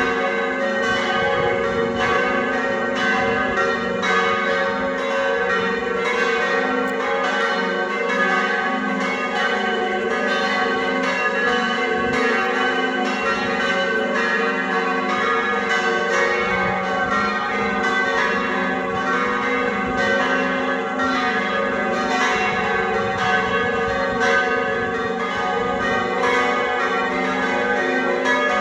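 Church bells ringing the noon peal, several bells struck over and over so that their tones overlap in a continuous, even clangour.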